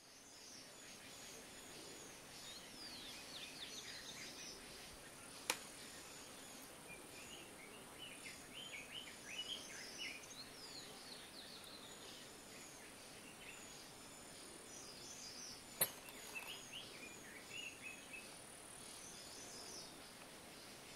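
Faint outdoor ambience of small birds chirping in quick, repeated downward-sweeping calls over a steady high-pitched insect drone. Two sharp clicks stand out, about five seconds in and again near sixteen seconds.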